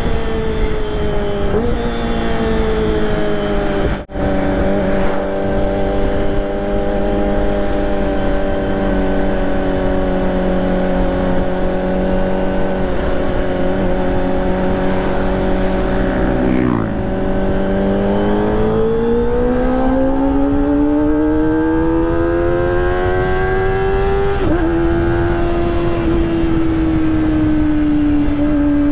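Kawasaki ZX-25R's 250 cc inline-four engine running through a Prospeed Shark high-mount exhaust under way. The engine note falls at first, cuts briefly about four seconds in, and then holds steady for several seconds. It dips about seventeen seconds in, climbs steadily until a gear change steps it down about twenty-four seconds in, and then holds steady again.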